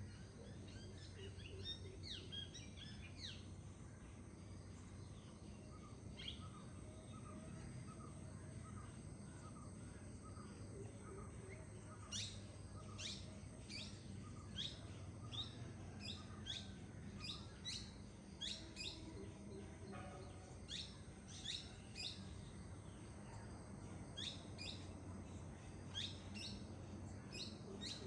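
Songbirds singing and calling in woodland over a steady low background rush. From about halfway through, one bird repeats sharp, quickly falling whistled notes about once or twice a second.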